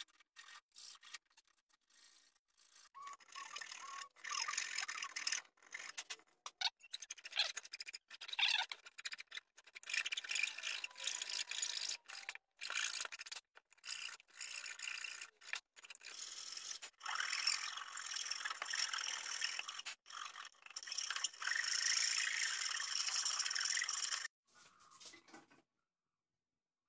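Hand file rasping across the end grain of spotted gum box-joint fingers, to bring them flush: quick back-and-forth scraping strokes in runs with short pauses, stopping a couple of seconds before the end.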